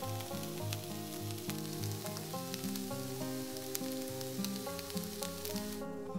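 Sliced onion, carrots and red bell pepper sizzling in oil in a nonstick frying pan, a dense crackle with sharp pops, which stops abruptly near the end. Soft background music plays underneath.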